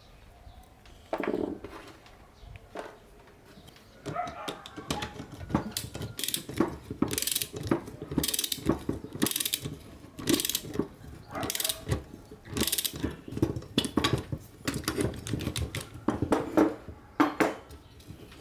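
Hand tools working on rusted metal lamp parts: a run of irregular scraping strokes and metallic clicks that begins about four seconds in.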